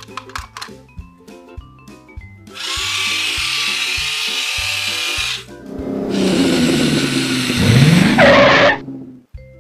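Race-car engine revving sound effect, played twice over background music with a steady beat: first a loud, even rev for about three seconds, then a louder rev whose pitch dips and climbs again near the end.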